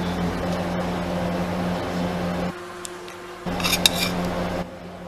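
Steady mechanical hum of a rolled ice cream machine's refrigerated cold plate, with a few sharp metal spatula clicks and scrapes about three and a half to four seconds in. The hum cuts out for about a second midway and drops lower near the end.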